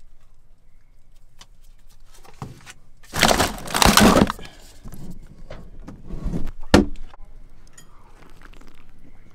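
Cans and packages clattering and rustling as a drink can is pulled out of a packed refrigerator door shelf, loudest for about a second and a half around three to four seconds in. A single sharp snap follows a few seconds later.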